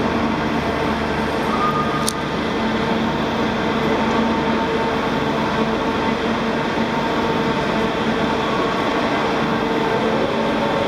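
The Great Elephant walking machine's diesel engine and hydraulics running with a steady drone as it walks, with a single sharp click about two seconds in.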